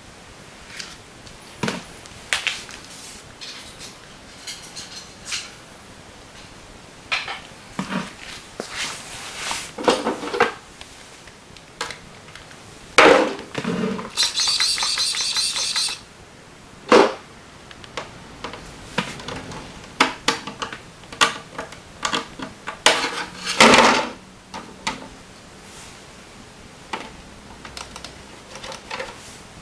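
Plastic knocks and clatter as a Tamiya Stadium Raider body shell is handled and fitted onto a TL-01 radio-controlled truck chassis. About halfway through, a high whirring noise lasts about two seconds.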